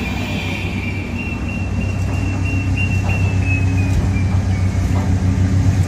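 Light-rail train approaching, its low running hum growing gradually louder, with a thin high tone that slowly drops in pitch. The rise in loudness is a volume ramp added in editing, so the train seems to draw closer.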